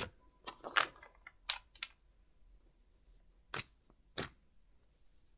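Tarot cards being handled and laid down: a series of short snaps and taps, several in the first two seconds and two more a little past the halfway mark.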